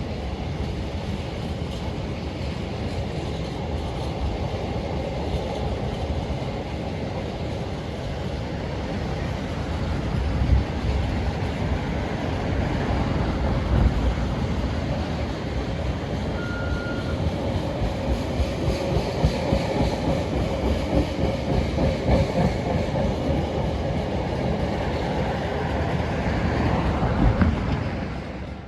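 Train passing close by: a steady rumble of wheels on rail, with a rhythmic clatter of wheels over rail joints that grows in the second half before the sound cuts off suddenly at the end.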